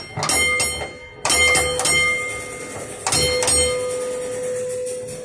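A vintage tram's foot-operated gong bell struck in three quick runs of a few strikes each, its tone ringing on between them. The bell is working again after a pin was borrowed from the tram's other cab.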